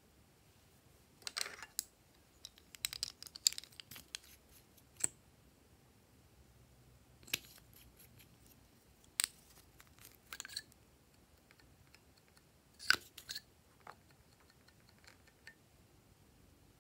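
Scattered sharp plastic clicks and light taps in short clusters as small makeup tubes, caps and an applicator are handled over the slime tray.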